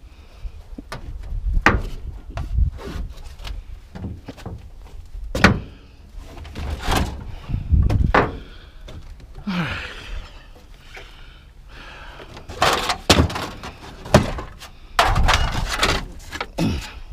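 Scrap being handled and tossed about: a string of irregular bangs, thuds and knocks, with a scraping slide about halfway through and a dense run of impacts near the end.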